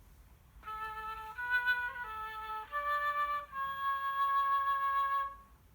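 A recorded flute melody from a children's sound book's sound effect: five notes, the last one held for about two seconds.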